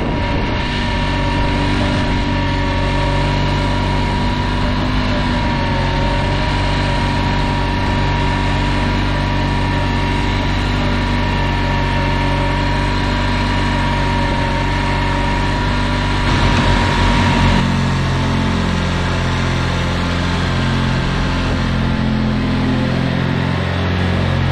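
Honda 3813 riding mower's engine running steadily under a steady high whine while the tractor drives. About two-thirds of the way through it briefly gets louder, the whine stops, and the engine note changes.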